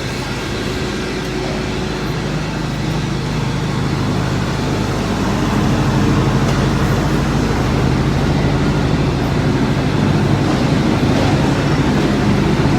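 Palm oil milling machinery running: a steady motor hum over broad mechanical noise, growing louder about five seconds in.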